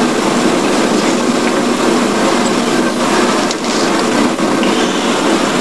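Steady rumbling background noise with no speech, most of it low in pitch.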